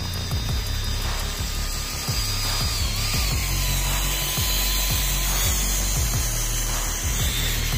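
The electric gear motor of a homemade RC grader whines as it drives, its pitch wavering briefly about three seconds in. It plays over background music with a heavy bass beat.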